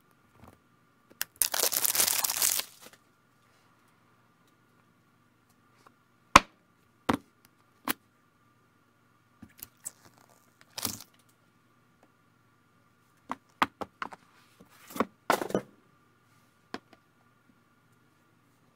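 An iPhone box being unboxed. About a second in comes a loud tearing rip of about a second and a half as its plastic wrap is pulled off. After that, scattered sharp clicks and taps come from the box, the phone being handled and phones set down on a table top, over a faint steady hum.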